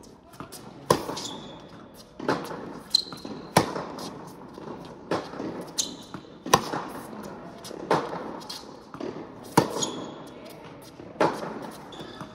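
Tennis rally on an indoor hard court: a tennis ball struck by rackets and bouncing on the court, giving sharp pops about once a second, each with a short echo off the hall.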